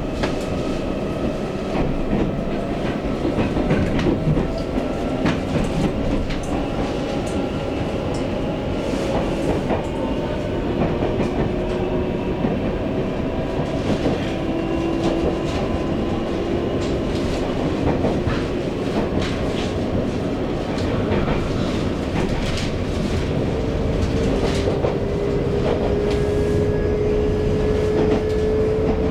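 Taiwan Railways EMU800 electric multiple unit running, heard from inside a passenger car: a steady rumble of wheels on track with scattered clicks over rail joints. The traction motors' whine slowly rises in pitch as the train gathers speed.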